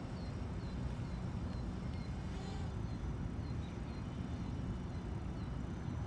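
Steady low rumble of wind on the microphone, with a bird giving short, high, falling chirps about two a second that thin out in the second half.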